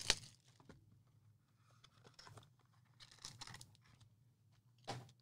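Faint handling sounds of a 2020 Obsidian football card box being opened by hand: a sharp tap at the start, then soft crinkles and rustles of cardboard and wrapper, and a short scrape near the end.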